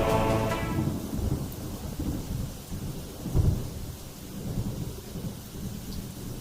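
Low rumble of a thunderstorm, swelling briefly about three and a half seconds in. Background music fades out in the first second.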